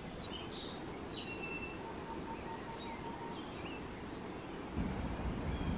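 Tropical forest ambience: several birds giving short chirps and whistles over a thin, steady high note and a low background rumble. The rumble gets louder near the end.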